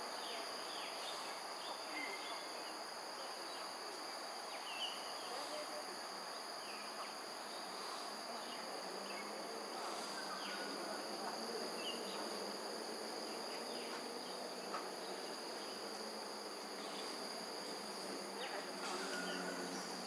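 Steady, high-pitched insect chorus, an unbroken shrill drone held throughout over a faint even background hiss.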